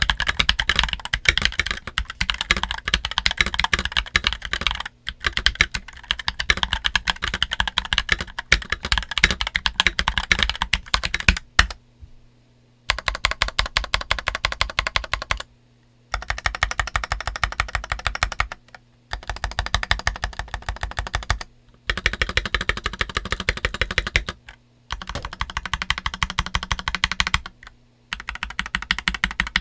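Typing sound test on an MK870 mechanical keyboard with its stock steel plate, JWK Black linear switches and DCX black-on-white keycaps. Fast continuous typing runs for about twelve seconds, then comes in bursts of two to three seconds with pauses of about a second between them.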